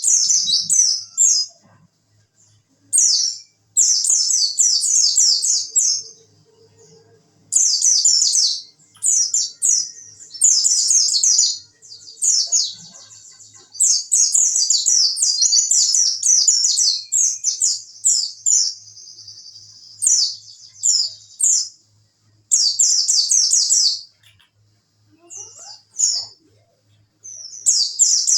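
White-eye (pleci) singing its 'wit wit' song: repeated loud phrases of rapid, high twittering, each one to two seconds long with short pauses between, and a longer even trill partway through.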